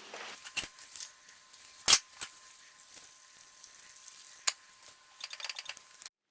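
Chicken thighs simmering faintly in a creamy sauce in a covered pan, with a few sharp clinks and knocks of the lid and cookware, the loudest about two seconds in. Near the end comes a quick run of clicks, then the sound cuts off suddenly.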